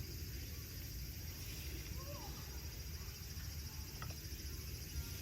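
Insects chirping steadily in a high, continuous trill over a low rumble, with one faint short gliding call about two seconds in.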